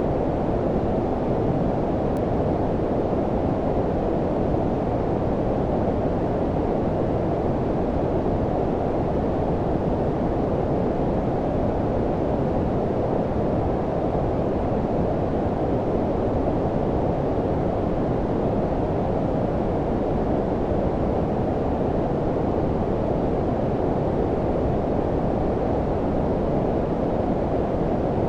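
Steady generated low-frequency noise of the brown-noise kind: an even, rumbling hiss with nearly all its energy below about 1 kHz and little treble, holding the same level throughout.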